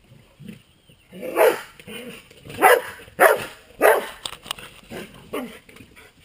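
A dog barking during rough play: four loud, sharp barks between about one and four seconds in, then a few quieter barks.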